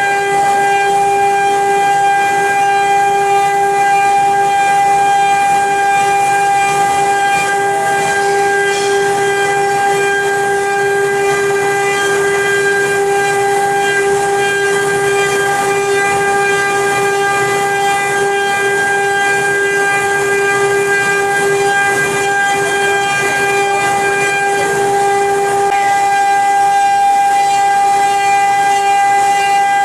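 CNC wood-carving router's spindle running with a steady, high whine that holds one pitch throughout.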